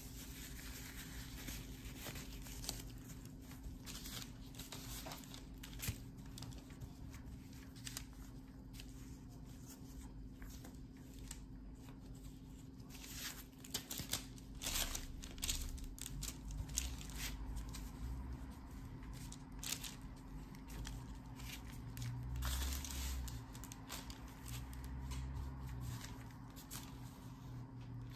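Plastic bench scraper scraping and cutting crumbly scone dough on crinkling parchment paper, with gloved hands pressing the dough, as the dough is cut and stacked to build flaky layers. The scrapes and rustles are scattered and come thickest in the middle and near the end.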